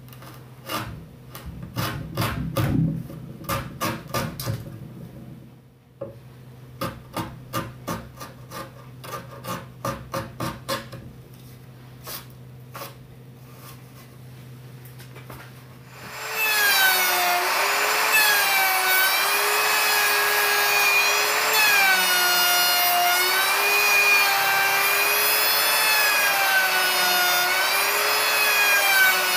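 Framing chisel paring wood from a timber housing: two runs of quick scraping strokes over a low steady hum. About sixteen seconds in, a handheld router starts cutting a housing in the beam, a loud steady whine whose pitch wavers up and down as the bit works through the wood.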